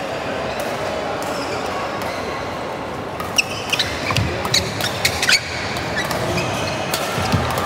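Badminton rally: sharp racket-on-shuttlecock hits, players' shoes squeaking on the court and thudding footfalls, starting about three seconds in over the steady background din of a large indoor hall.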